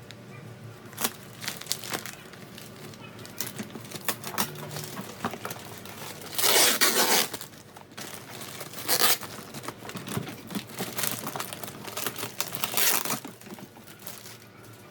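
Packaging being handled while an air fryer is unboxed: irregular crinkling and rustling with short tearing bursts, the longest about halfway through.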